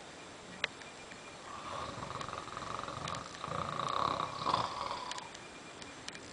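A sleeping person snoring, passed out drunk: one long, rough snore lasting about three and a half seconds and swelling toward its end. A single sharp click comes shortly before it.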